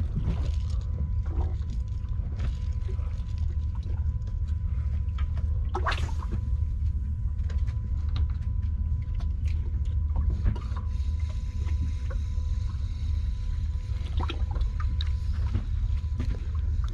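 Aboard a small fishing boat at sea: a steady low rumble, with scattered light knocks and splashes and a louder knock about six seconds in.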